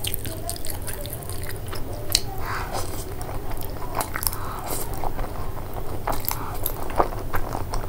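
Close-miked eating of noodles: irregular wet chewing and sharp mouth clicks, with a couple of short slurps as strands are drawn in, the first about two seconds in and another about four seconds in.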